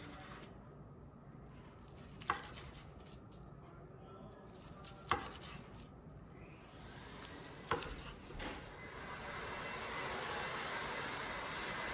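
Chef's knife slicing through a kimbap roll, the blade knocking on the wooden cutting board three times, a couple of seconds apart. From about seven seconds in, a steady hiss rises and holds to the end.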